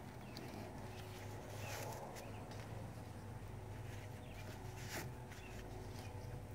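Quiet handling noises: scattered light rustles and small clicks as strands of baler twine are handled, over a steady low hum.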